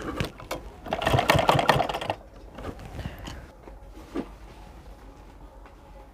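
Usha sewing machine running in one short burst of rapid stitching, about a second in and lasting about a second, with a few sharp clicks of the mechanism before it and lighter clicks after.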